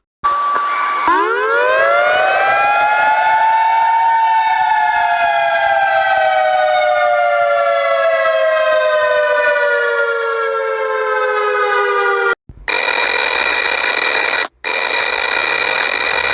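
Emergency-alert siren sounds. A short steady beep gives way to an air-raid-style siren, two close pitches together, which winds up over about three seconds and then slowly winds down. It cuts off suddenly and a steady chord-like alert tone starts, broken once by a brief gap.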